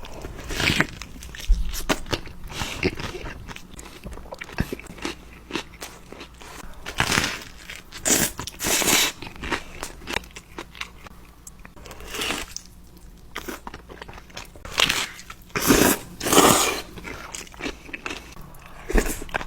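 Close-up eating sounds: crunchy bites and chewing, a string of sharp crunches with louder clusters about seven to nine seconds in and again around fifteen to seventeen seconds in.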